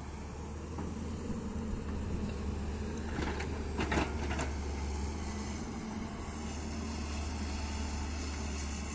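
Hyundai excavator's diesel engine running steadily, with a few short metallic clanks or scrapes between about three and four and a half seconds in, the loudest near four seconds.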